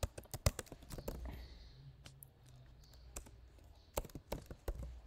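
Typing on a computer keyboard: a quick run of keystrokes in the first second or so, a few scattered clicks, then another run near the end.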